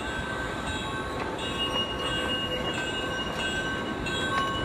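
Miniature ride-on train rolling along its track, its wheels squealing on the curve in thin, steady high tones that come and go, over steady background noise.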